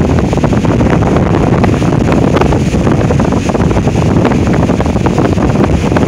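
Strong gusty wind of about 40 to 60 mph blasting the microphone: a loud, continuous low rumble broken by constant crackling buffets, with the rush of wind through trees.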